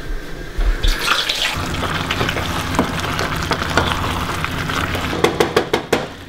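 Mince and tomato sauce simmering and sizzling in a stainless steel saucepan on a gas hob, stirred with a wooden spoon, a steady bubbling hiss. A few spoon knocks on the pan come near the end.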